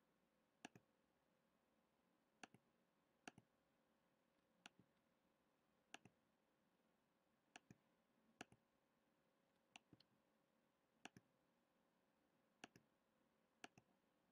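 Computer mouse button clicking eleven times at uneven gaps of about a second, each a sharp click followed at once by a softer one as the button is pressed and released. The clicks sound against near silence.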